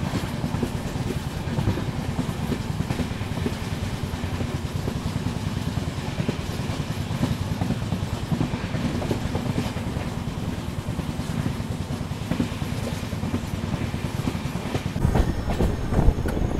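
Express passenger train running, heard from on board: a steady rumble and clatter of the coach's wheels on the track, getting louder near the end.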